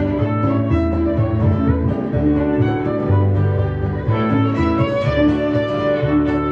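Live acoustic string band playing a Scottish-Irish style instrumental: a bowed fiddle leads the tune over acoustic guitar, upright bass notes and a harp.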